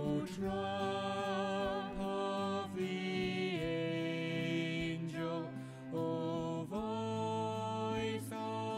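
Slow, gentle music of long held notes, some with a slight vibrato, the melody moving to a new note every second or so.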